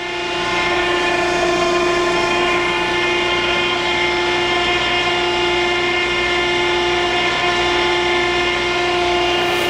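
Okamoto ACC-12.24ST hydraulic surface grinder running in its grinding cycle, with the table and cross slide moving under hydraulic feed. It gives a steady whine that builds up over the first half-second or so.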